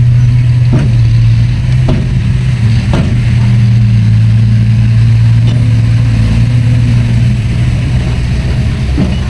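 Heavy earthmoving machine's diesel engine running at a steady speed, with a few sharp knocks and clanks over it.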